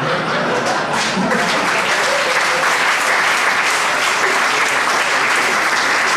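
A theatre audience applauding steadily.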